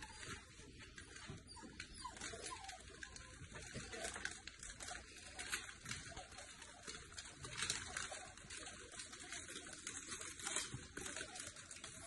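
Shiba Inu puppies playing: many quick, light pattering and scuffling strokes of small paws, with occasional small puppy sounds.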